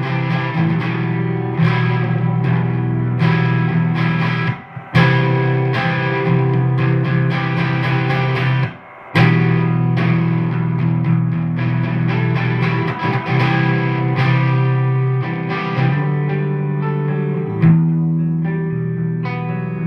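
Electric guitar played through a British-style vacuum tube amp (dry) and a Supro Comet combo amp with reverb in stereo, chorus pedal switched off: held, ringing chords, breaking off briefly twice, about five and nine seconds in.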